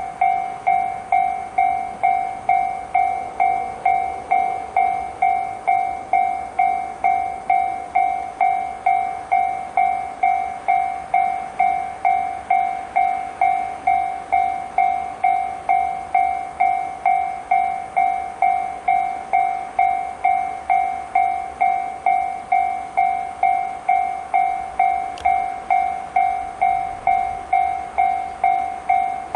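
Japanese railway level-crossing warning alarm in the JR standard tone, ringing a steady string of electronic dings at about two a second, each fading quickly.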